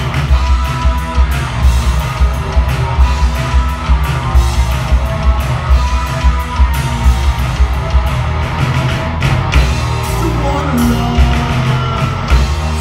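Live rock band playing electric guitar, bass guitar and drum kit, with a steady beat of about three drum hits a second.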